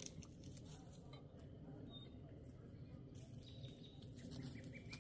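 Faint outdoor ambience with scattered soft crackles from the campfire and a few short, high bird chirps.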